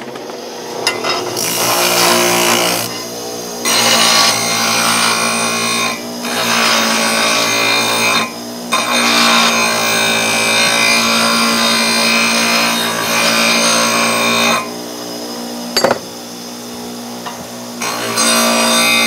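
Bench grinder running with a steady hum while a VW Beetle connecting rod is pressed against the wheel in several stretches of grinding, taking metal off to bring the rod's weight down for balancing. The grinding breaks off briefly a few times, with a longer lull and a single click about three-quarters of the way through, then resumes near the end.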